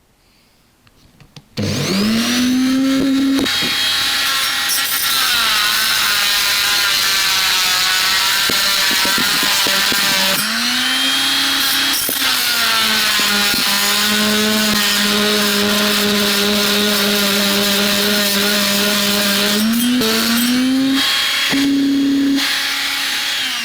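Dremel rotary tool with a blunt little bit cutting into the seized bush on a motorcycle engine mounting bolt. Its high motor whine starts about a second and a half in and sags in pitch each time it is pressed into the metal. It briefly drops and picks up again near the end.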